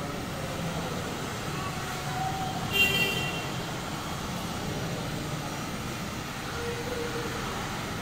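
Handheld electric heat gun blowing steadily as it warms clear protective film on a motorcycle's front mudguard, with a brief sharp squeak about three seconds in.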